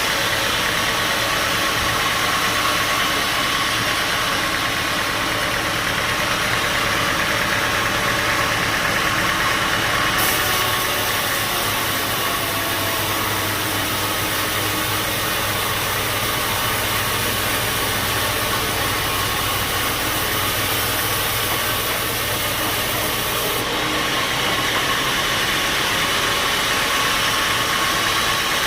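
Bandsaw sawmill running steadily, a constant mechanical drone and noise; a higher hiss joins about ten seconds in and drops away about ten seconds before the end.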